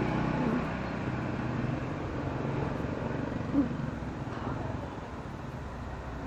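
Road traffic on a busy road: a steady rumble of passing vehicles, louder at the start and easing off, with one short sharp sound about three and a half seconds in.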